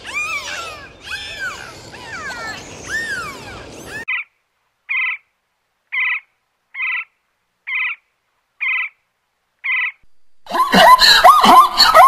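Dolphin whistles, gliding up and down, for about four seconds. Then a woodpecker gives a short call seven times, about once a second. Near the end a zebra starts a loud, harsh braying call, the loudest sound here.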